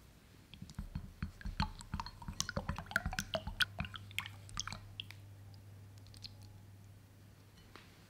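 A wooden stick stirring gelatin liquid in a glass bowl: quick splashes, sloshes and clicks for about four seconds, then it stops.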